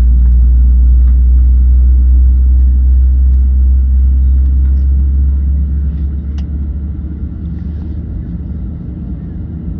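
Steady low rumble inside the cabin of a Boeing 737-700 airliner, from its engines and airflow. The rumble eases a little about six seconds in, with a few faint clicks.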